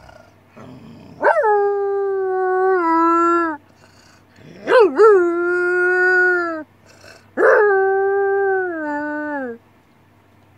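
A girl imitating a wolf howl through cupped hands: three howls, each rising quickly, held on one pitch, then stepping down lower near the end. It is her angry howl, pitched a little deeper with a growl and bark worked into it.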